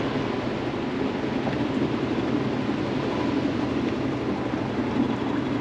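A boat's engine running steadily, under an even hiss of wind and water.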